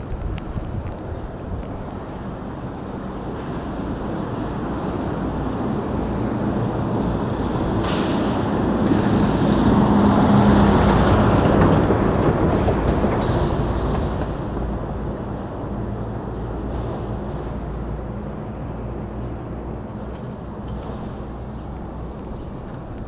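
A large vehicle passes close by, its noise building over several seconds and then fading away, with a short sharp hiss about eight seconds in. Steady road and wind rumble from the e-scooter ride runs underneath.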